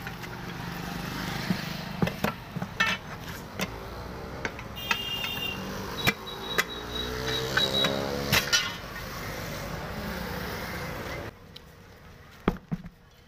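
Steel tyre levers clinking, knocking and scraping against the steel rim of a 9.00-16 tyre as the bead is pried off, with a few brief ringing metal tones. A steady low rumble runs underneath and drops away about eleven seconds in, followed by two last knocks.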